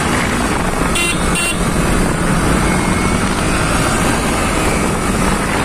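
Yamaha R15 V3 motorcycle being ridden at road speed, its engine running under a steady rush of wind and road noise. About a second in, a horn gives two short beeps.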